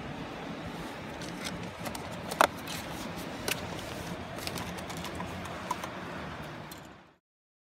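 Steady rush of stream water with a scatter of small clicks and taps from handling fishing gear and a wicker creel, the loudest about two and a half seconds in. The sound cuts off abruptly near the end.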